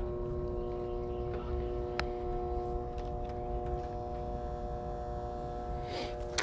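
Steady hum of running HVAC equipment, several even tones over a low rumble, with a single sharp click about two seconds in.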